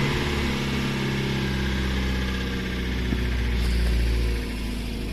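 Kia Sportage engine idling steadily just after a cold start following the winter, heard from inside the cabin.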